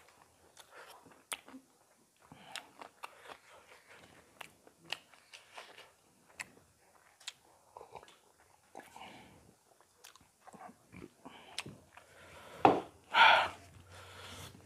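Close-up eating sounds of chicken curry being eaten by hand: chewing, lip smacks and small crunches, with scattered clicks. Near the end comes a louder click, then a short hiss.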